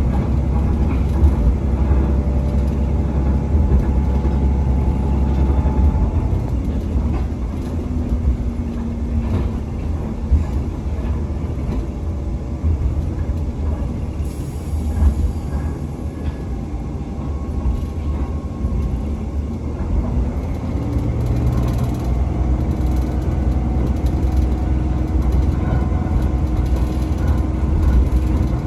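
Ride noise inside a passenger coach of a diesel-hauled stove train running at speed: a steady low rumble of wheels on rail, with faint engine tones that shift in pitch now and then and rise about 20 seconds in.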